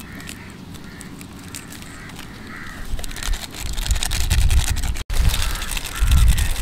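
Crinkling and rustling of a foil seasoning sachet as it is snipped open and squeezed out, with birds calling repeatedly in the background and some low rumbling swells.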